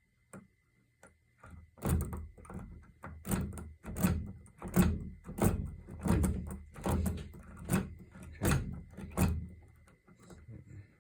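Tickler pick jiggling and raking in the keyway of a Kwikset doorknob lock under tension: a run of sharp metallic clicks and knocks, roughly two a second, from about two seconds in until near the end. The pins are not setting, and the lock stays shut.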